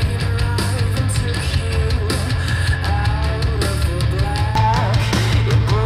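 Heavy rock music with electric guitar and a steady beat, played back through a pair of Radiotehnika S-90 floor speakers.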